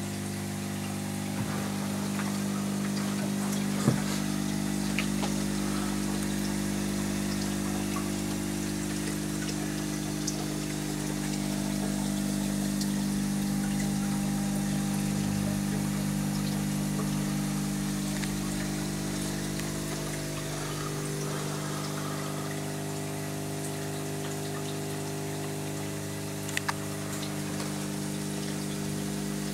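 A homemade terrarium rain system running: the small electric pump hums steadily while its spray hisses and patters on the glass and plants, with a few scattered drip clicks.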